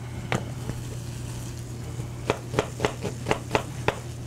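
Knife chopping vegetables on a cutting board: a single knock, then about two seconds in a quick run of seven chops, about four a second.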